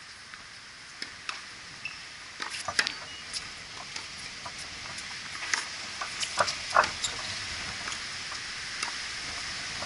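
Tennis on an outdoor hard court: scattered short taps and pops of the ball bouncing and being struck by rackets, plus footwork on the court, the loudest about three and seven seconds in, over a steady hiss.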